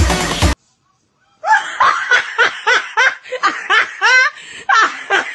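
Dance music cuts off about half a second in. After a short gap, a person laughs in a quick run of short, high-pitched laughs, about four a second.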